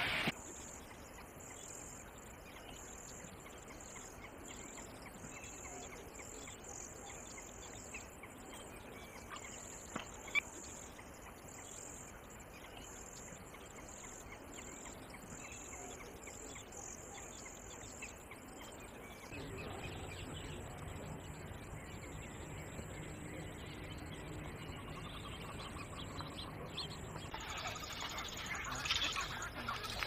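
Faint outdoor ambience with scattered bird chirps over a steady, pulsing high-pitched hiss. A sharp click comes about ten seconds in, and a low hum joins about two-thirds through.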